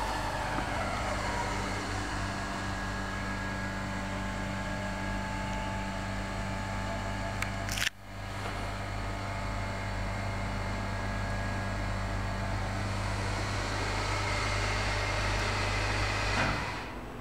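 Hydraulic lift pump unit of a 1991 Schindler lift running behind the machine-room vent, a steady low hum. A sharp click about eight seconds in briefly drops the hum before it builds back up, and it quietens shortly before the end.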